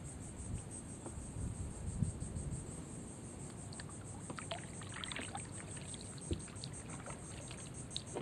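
Kayak drifting and paddling quietly on calm water: faint drips and small splashes, with a few light ticks. Steady high insect trilling from the marsh grass runs underneath.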